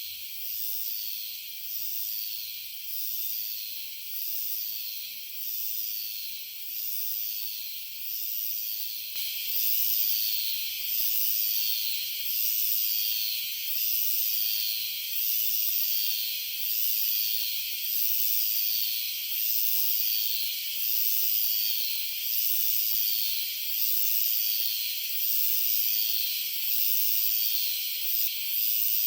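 Iwasaki-hime-harusemi cicadas (Euterpnosia iwasakii) singing: a high, hissing buzz repeated in phrases about once a second, getting louder about a third of the way in.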